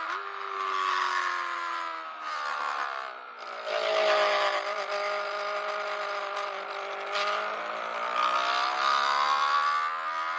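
Yamaha R3's parallel-twin engine through an aftermarket exhaust, heard from the rider's seat with wind rush: the revs fall as the bike slows for a corner, with a quick drop in pitch about three and a half seconds in as it shifts down, then climb steadily as it accelerates out.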